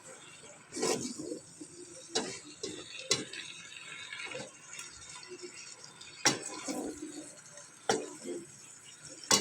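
Kitchen utensils knocking and clinking against cookware: about six sharp, irregular strikes, with a quieter scraping between them.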